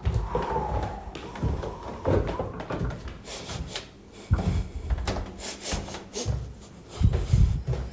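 A box being handled: irregular soft knocks, scrapes and rustles, with dull low thumps that come more thickly about four seconds in and near the end.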